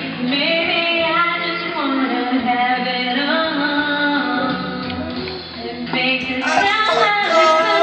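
A song with a singing voice over accompaniment. About six seconds in, the sound changes as a different passage begins.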